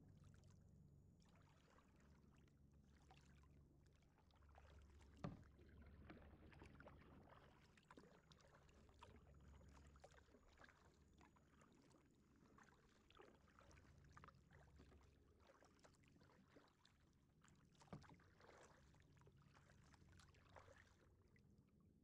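Faint kayak paddling: small splashes and drips of water from the paddle strokes, with two louder knocks, one about five seconds in and one near the end.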